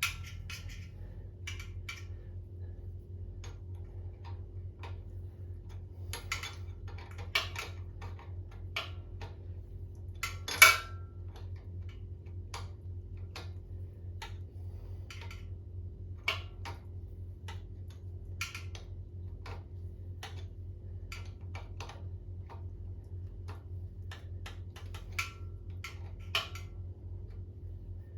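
Sparse, irregular metallic clicks and taps of hand tools working the transmission drain plug under the bike, with one louder clank of metal on metal about ten seconds in.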